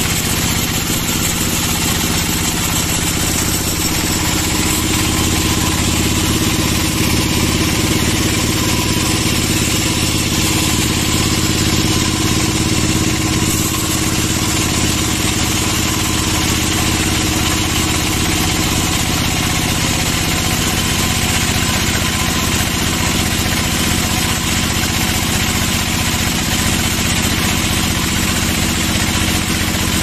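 Band sawmill running steadily through a cut in a big hardwood log: an even machine drone from the mill's drive, with the hiss of the band blade in the wood.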